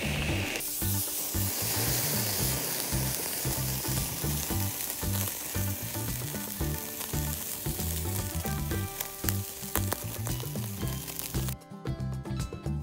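Thick beef steak sizzling on a wire grill over charcoal: a steady hiss that starts sharply about half a second in and cuts off near the end. Background music with a steady beat runs underneath.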